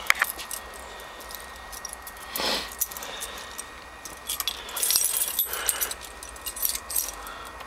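Light jingling and scattered clicks, densest about five seconds in, with a short rustling noise about two and a half seconds in.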